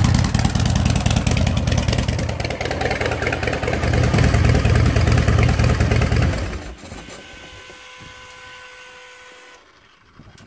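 Fuel-injected S&S V-twin engine of a 2007 Big Dog Bulldog chopper running loud through its chrome exhaust, then shut off about two-thirds of the way in. A faint steady whine follows for a few seconds.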